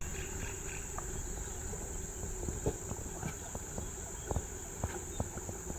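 Steady high-pitched drone of insects, such as crickets or cicadas, in tropical forest, with scattered light clicks and taps throughout.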